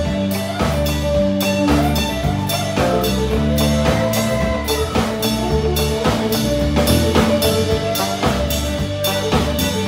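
Live country band playing an instrumental break: a fiddle takes the lead with held, bowed notes over acoustic guitar, electric bass and a steady drum beat.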